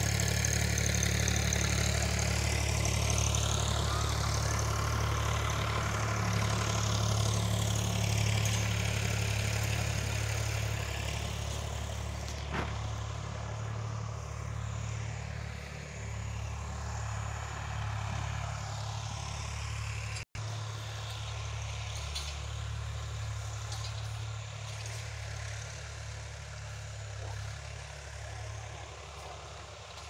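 An engine running steadily with a low, even hum, cutting out for an instant about twenty seconds in.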